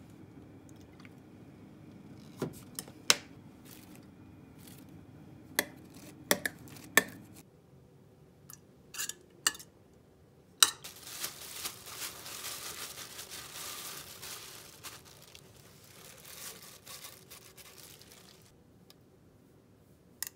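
A metal spoon clinks sharply against a glass bowl several times while stirring a thick sauce. Further on, a sharp knock is followed by several seconds of crackly rustling and scraping.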